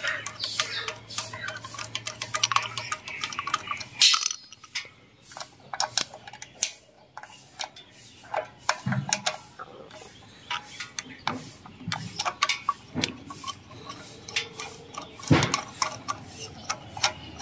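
Irregular metallic clicks and clinks of a screwdriver and a small nut or screw against the metal of a generator's alternator, with a louder click about fifteen seconds in.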